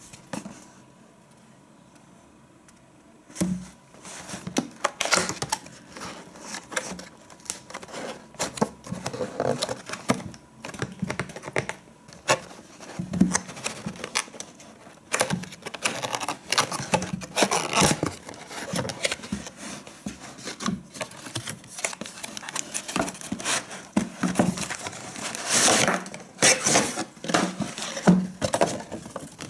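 Cardboard shaver box being opened by hand: the tuck tab is pulled free and the flaps scrape, and the packaging tray and plastic bag rustle and crinkle. After a quiet first few seconds it becomes a dense run of scrapes, clicks and crackles.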